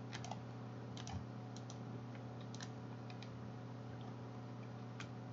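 Light clicks from a computer mouse and keyboard as a calculation is entered: a dozen or so faint clicks, several in quick pairs, over a faint steady low hum.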